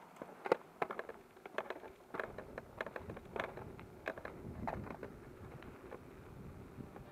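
Dirtsurfer rolling along a paved road: irregular clicks and rattles, several a second, over a low rumble.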